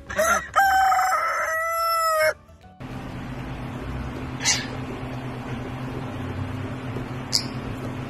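A rooster crows once, a long cock-a-doodle-doo of about two seconds that drops slightly in pitch at the end. After a cut, a steady low hum follows with two brief high chirps.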